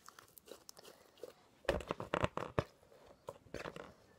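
Close handling noise: crinkly rustling and crackling in short clusters, heaviest in two bursts, about two seconds in and again near the end.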